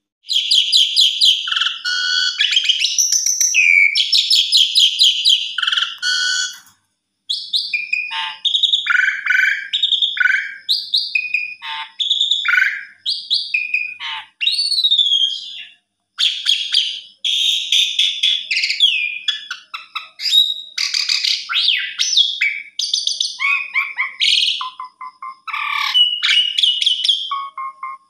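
Asian pied starling singing a long, varied song of fast chattering trills, whistled slurs and rattling notes in phrases, with two short pauses, near 7 and 15 seconds in.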